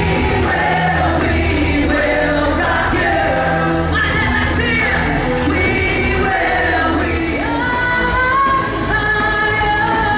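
Live rock show music: a singer with a microphone over a loud band backing.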